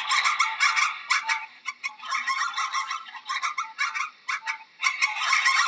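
A flock of domestic fowl calling: many rapid, short, harsh calls overlapping, with a few brief lulls.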